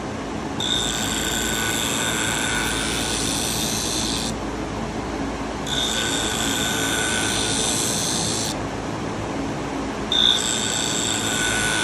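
A shear blade is drawn across the running diamond grinding wheel of a Wolff Twice As Sharp scissor sharpener in three passes of about three seconds each. Each pass gives a grinding hiss with a high ringing whine, heard over the machine's steady running noise. The passes are raising a burr along the edge.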